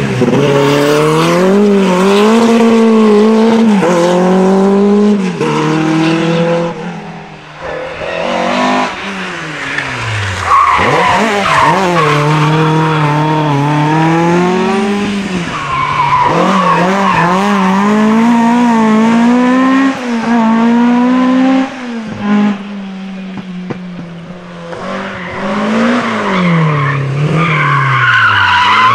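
Historic rally cars passing one after another at racing speed, among them a Ford Escort RS1800 and a BMW M3 E30. Each engine revs hard, rising and falling through quick gear changes, with tyre squeal as the cars slide through the bend.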